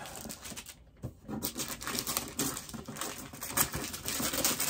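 Black wrapping paper around a shoe box rustling and crinkling as it is handled and peeled open. Quiet for about the first second, then dense, irregular crackling.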